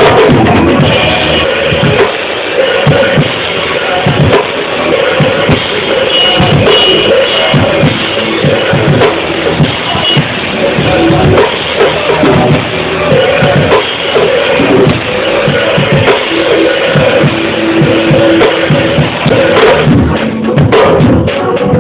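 Praise music played by a band with a drum kit and guitar, the drums beating steadily throughout.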